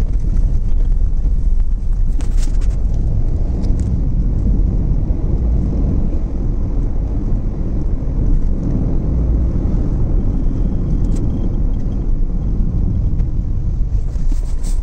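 Steady low rumble of a moving vehicle, engine and tyre noise heard from on board while driving along the road.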